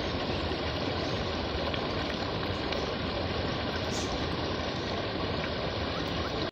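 Stream water pouring over a low step and churning into white foam: a steady, dense rush that cuts off suddenly at the end.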